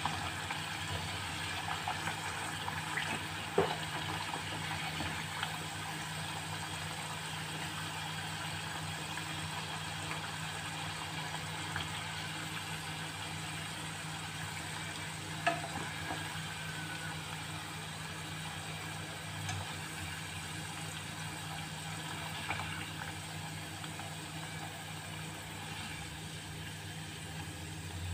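Slices of elephant yam deep-frying in a small saucepan of hot oil: a steady sizzle, with a few light clicks as wooden chopsticks knock the pan while turning the pieces.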